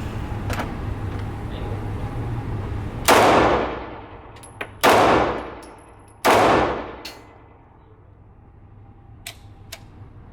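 Three pistol shots about a second and a half apart, each followed by an echoing tail that dies away over about a second.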